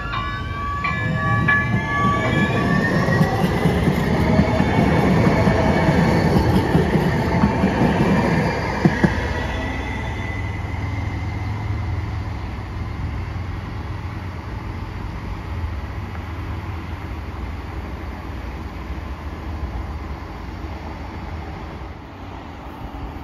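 Electric light rail train pulling away, its traction motors whining and rising in pitch over the first few seconds. The rumble of wheels on rail then builds, with two sharp knocks near nine seconds, and slowly fades.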